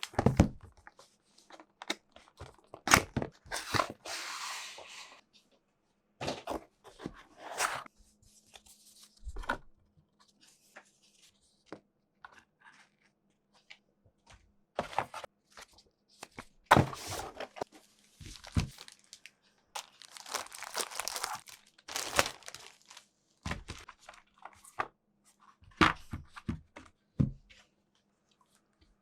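A keyboard's cardboard box and packaging being handled and opened: irregular knocks and thunks of the box, with several longer stretches of tearing and crinkling of paper or plastic wrapping. A faint steady hum runs underneath.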